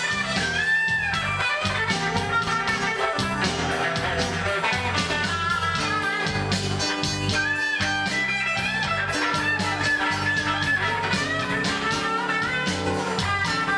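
Bluesy rock band music led by electric and acoustic guitars, with a moving bass line under melodic guitar phrases.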